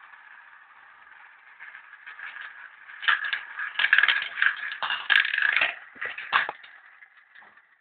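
Marbles rolling along the track of a marble run with a steady rolling whirr, then from about three seconds in a quick flurry of clicks and clatters as they drop and knock through the pieces, dying away near the end.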